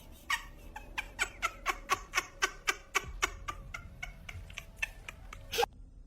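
A cat making a rapid, even series of short clicking sounds, about four a second, fading after about three seconds and stopping near the end.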